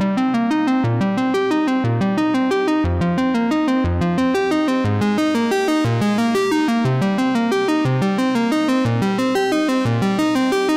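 Background music: a synthesizer and keyboard tune of quick repeated notes, with a bass note about once a second.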